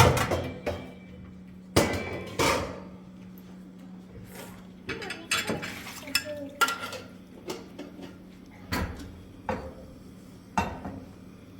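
Irregular sharp knocks and clatter of hard objects being handled, a dozen or so strikes spaced unevenly, over a steady low hum.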